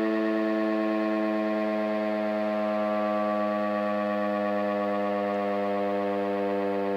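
Federal Signal RSH-10A Thunderbeam electromechanical warning siren sounding a steady tone that sags slightly in pitch.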